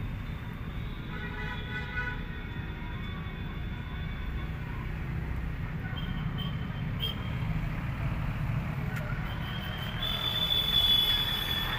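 Steady low vehicle rumble, with a few faint horn-like tones early on and a louder high steady tone coming in near the end.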